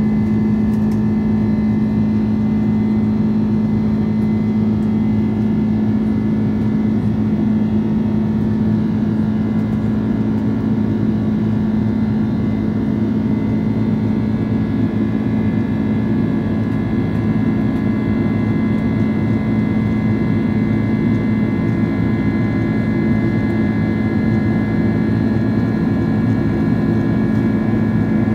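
Boeing 767-400(ER) cabin noise during the climb after takeoff, heard beside the wing: the General Electric CF6-80C2 turbofans at climb power make a steady drone with a strong low hum and fainter high whining tones.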